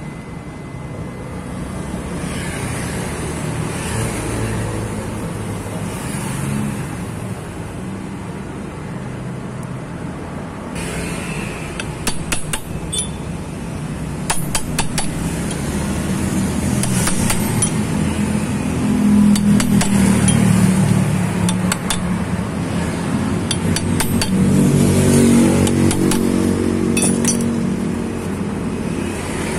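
Sharp metal taps in clusters, starting about eleven seconds in, as a rod is knocked to drive a new seal into the scooter's crankcase bore around the shaft. A steady low rumble of engines and traffic runs underneath and swells twice.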